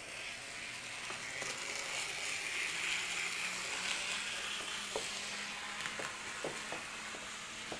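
Model railway locomotive running along the track with a whirring hiss from its small electric motor and wheels, swelling and then easing off. In the second half there are several sharp clicks as it runs over rail joints and points.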